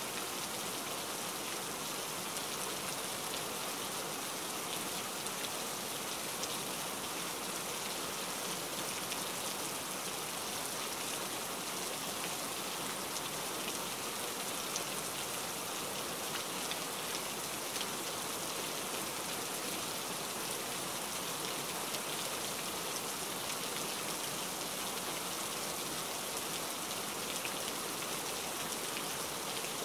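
Steady rain falling: a constant hiss with scattered fine ticks of individual drops.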